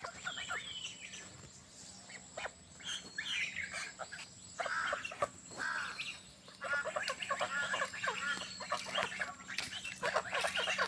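A small flock of young domestic geese calling: many short, overlapping pitched calls, scattered at first and coming thick and fast from about seven seconds in.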